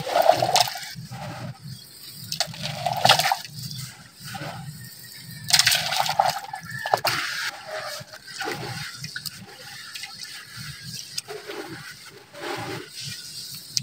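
Handfuls of crumbly red dirt dropped and squeezed into a jug of water, then a hand and forearm stirring it into a muddy paste, with irregular splashing and sloshing.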